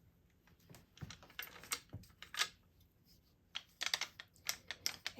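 Irregular light clicks and knocks, in two clusters, from wooden frame pieces and clamps being handled and adjusted on a nailing jig.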